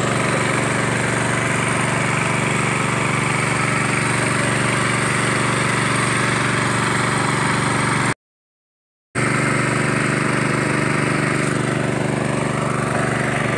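Disinfectant fogging machine's small engine running with a steady drone. The sound cuts out completely for about a second just past the middle.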